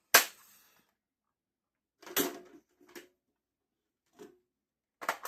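Hard knocks and clacks from handling a cash drawer's removable till insert. There is one sharp knock at the start, then a few lighter clacks spread over the next few seconds and a quick cluster near the end.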